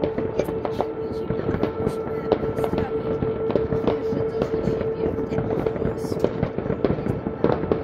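Many fireworks going off at once: a dense run of bangs and pops, several a second, over a steady humming tone.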